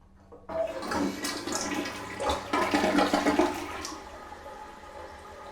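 Toilet being flushed: water rushes in suddenly about half a second in, loudest for the next three seconds, then settles to a quieter steady rush as the bowl drains and refills.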